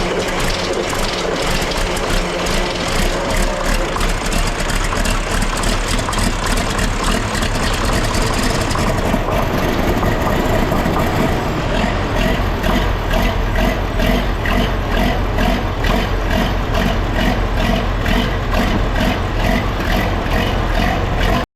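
John Deere 4840's six-cylinder diesel engine running steadily just after a cold start at about freezing without ether, with an even, rhythmic firing beat that becomes clearer about nine seconds in.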